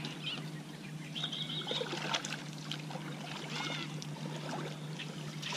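Water splashing and trickling at the side of a kayak where a landed cod is held in the water on a lip grip, with a louder splash about two seconds in. Short bird chirps sound over it.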